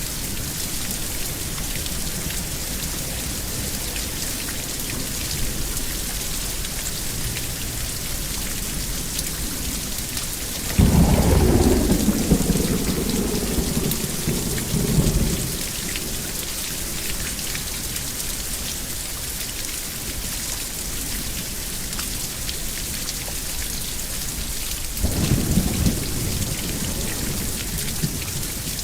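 Steady rain falling, with two peals of thunder rumbling over it: a loud, rolling one about eleven seconds in that lasts some four seconds, and a shorter, weaker one near the end.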